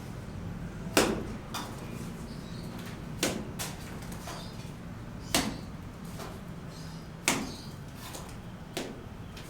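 Sharp knocks over a steady low hum. They come one at a time or in quick pairs, about every two seconds.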